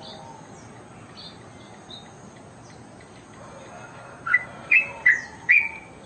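Caged yellow-vented bulbul (trucuk) singing: a few faint chirps, then near the end a run of four loud, short notes about half a second apart.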